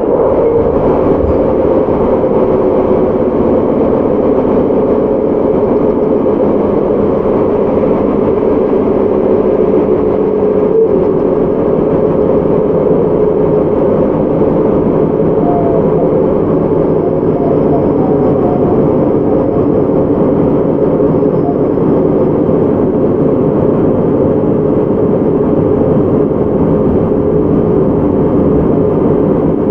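Running noise inside a JR Hokkaido 731 series electric train's motor car under way at steady speed: rolling wheel and track noise under a steady layered hum from the traction motors and Hitachi IGBT inverter.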